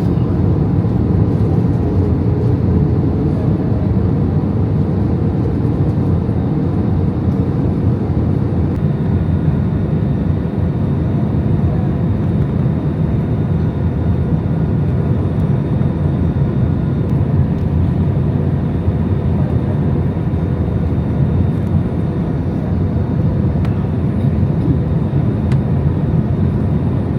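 Steady cabin noise inside an Airbus A320-200 airliner: a loud, even drone of jet engines and rushing air, deepest in the low range, with faint steady tones riding over it.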